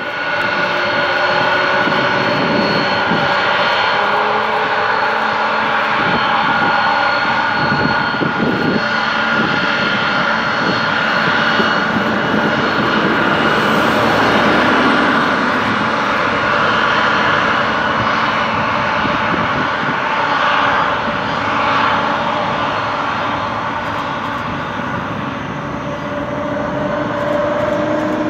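Aircraft engine running steadily: a loud, even noise with several steady whining tones held throughout.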